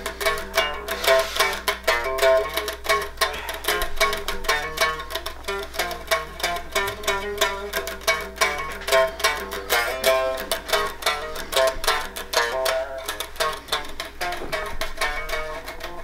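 Single-cut electric guitar played with a pick: a quick, continuous run of single melodic notes.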